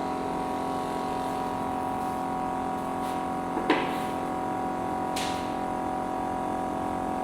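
Electric mini melting furnace running at power while melting brass, giving off a steady electrical buzz. A sharp metallic click cuts through about halfway, and a fainter one follows a second and a half later.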